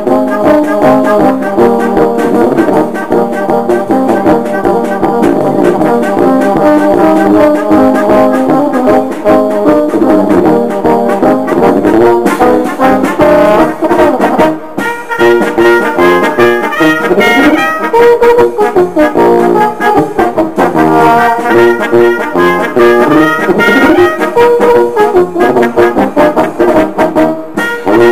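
Brass band playing Czech-style music, with two upright baritone horns at the front. The music breaks off briefly about halfway through, then goes on.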